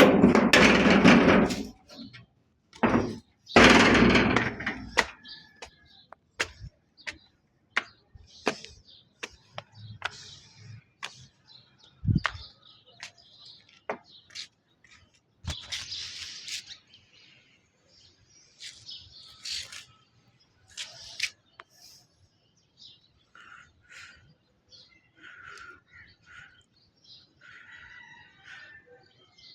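Pet parrot chirping in short high calls, mostly in the last third, among scattered sharp clicks and knocks. A loud burst of noise fills the first few seconds.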